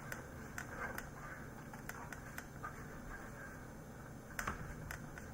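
Faint light handling noise: scattered sharp clicks and taps, a cluster about 4.5 seconds in, over a low steady hum.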